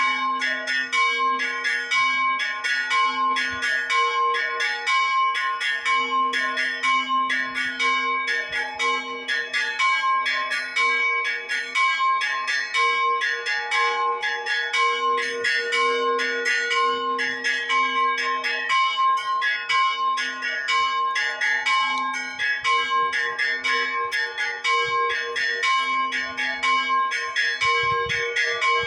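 Church bells ringing together: several bells of different pitch struck in a rapid, continuous rhythm, their tones overlapping and ringing on between strikes.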